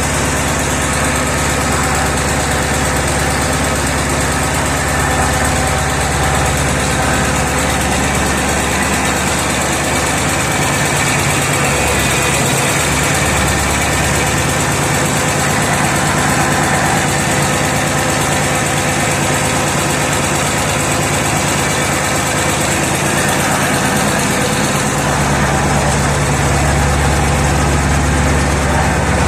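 Diesel engine of a B10M crawler tractor idling steadily, being run in during repair.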